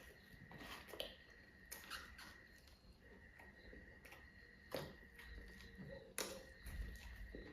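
Quiet eating sounds: faint chewing with a few sharp clicks and crackles from food being handled, over a faint steady high-pitched tone.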